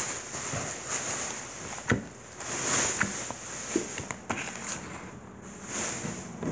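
A plastic shopping bag rustling and crinkling in waves as it is handled, with a few sharp knocks among the rustling.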